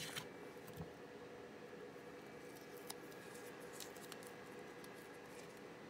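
Quiet bench room tone with a faint steady hum, broken by a few faint light clicks and taps from small parts and tools being handled on the workbench mat.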